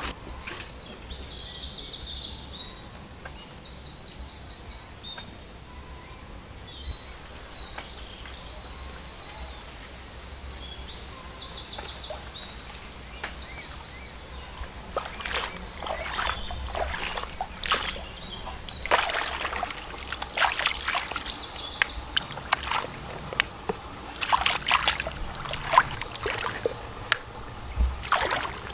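Birds repeat high, rapid trilling calls, most of them in the first half. From about halfway, hands slosh and splash in shallow muddy creek water in quick clusters of strokes, rinsing freshly gathered mud clams.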